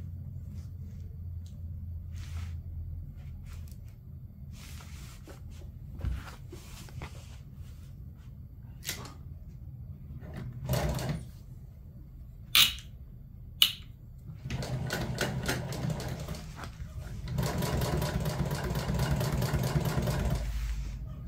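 Industrial sewing machine stitching two upholstery seat panels together in two quick runs over the last seven seconds or so. Before that there is a low hum, with clicks and rustling as the material is lined up under the presser foot.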